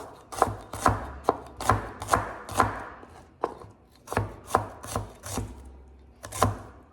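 Kitchen knife chopping on a cutting board: sharp single strokes about two a second, with a couple of short pauses. The ingredients are being cut roughly because they will be ground into the sauce afterwards.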